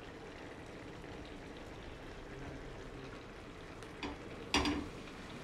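Buttered pav set down on a hot tawa and pressed flat by hand, giving a short sizzle about four and a half seconds in over faint, steady background noise.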